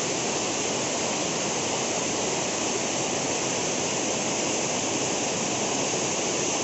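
Waterfall: water falling onto rock, a tremendous, steady rushing that does not change.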